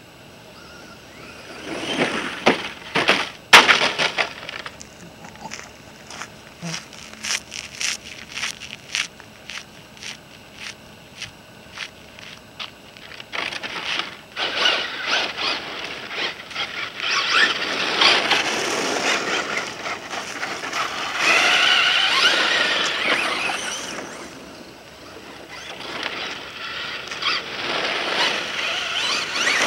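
Radio-controlled Ford F-150 Raptor model truck driving on loose gravel and sand: a run of sharp crackling clicks early on, then its motor whines in rising and falling bursts as its tyres spin and scrape the gravel. The tyres are losing traction in the sand.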